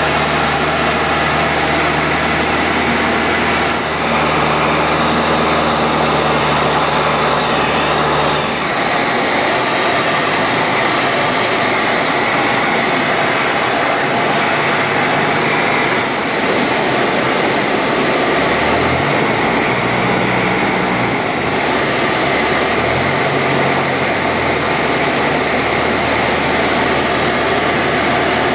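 Cockpit noise of a Mudry CAP 10B in flight: its four-cylinder Lycoming engine and propeller running under a loud, steady rush. The low engine tone drops about eight seconds in and shifts up and down several times later on.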